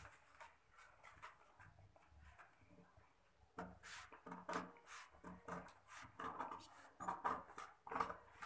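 Tailoring scissors cutting through folded brown pattern paper: quiet handling at first, then from about three and a half seconds in, a run of crisp snips and paper crackle, several a second.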